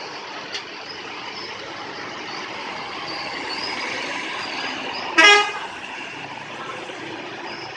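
Steady traffic noise, broken about five seconds in by one short, loud vehicle horn blast.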